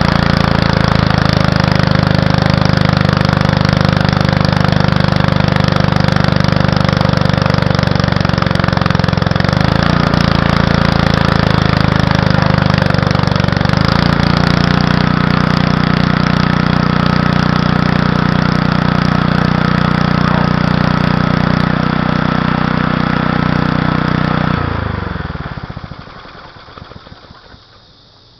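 Small gasoline engine running a homemade alternator welder, its pitch sagging a couple of times as it bogs down under the welding load. Near the end the engine is shut off and winds down to a stop.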